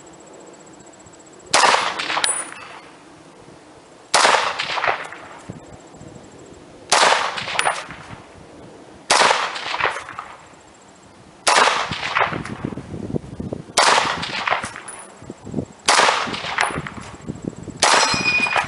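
1944 Springfield Armory M1 Garand (.30-06) firing eight aimed shots, one about every two to three seconds, each with a ringing echo. After the eighth shot near the end, the empty en bloc clip ejects with its ringing metallic ping.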